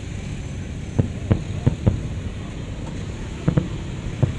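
Fireworks shells bursting some way off: a string of sharp bangs, four in the first two seconds and three more near the end, over a steady low rumble.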